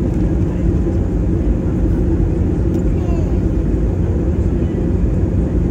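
Steady low rumble of an airliner's engines and rushing air, heard inside the passenger cabin during the descent.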